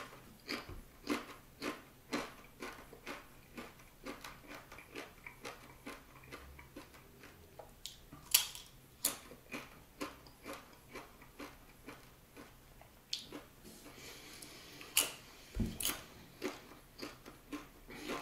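Crunching and chewing a Carolina Reaper and scorpion pepper tortilla chip: a steady run of crisp bites about twice a second, with a few louder sharp clicks about halfway through and again near the end.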